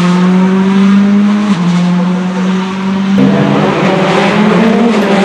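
Subaru Impreza WRC S14's turbocharged flat-four rally engine running hard at high revs, its note shifting about a second and a half in. A little after three seconds the sound changes abruptly to another stretch of the same engine, its pitch wavering up and down.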